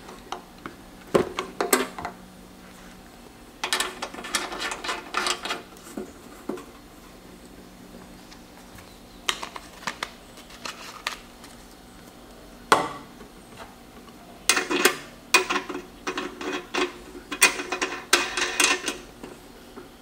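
Caps and fittings being handled and turned on an Andeman JS-301A smoke leak detector after its oil is drained: bursts of clicking and rattling, one sharp click about two-thirds of the way through, and a dense run of clicks near the end.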